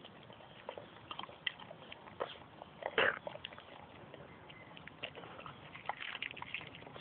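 A dog chewing a grasshopper: irregular small crunches and mouth clicks. The loudest comes about three seconds in, and a quicker run of them follows near the end.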